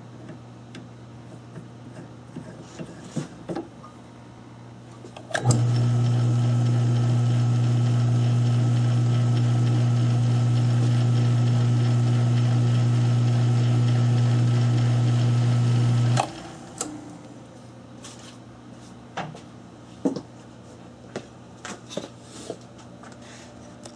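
South Bend lathe's electric motor switched on about five seconds in, running with a steady hum for about eleven seconds, then switched off. Scattered light clicks and knocks of handling before and after.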